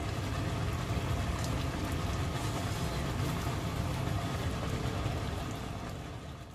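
Thick spicy chicken stew (dakbokkeumtang) simmering in a pan, bubbling and popping faintly over a steady low rumble. It fades out near the end.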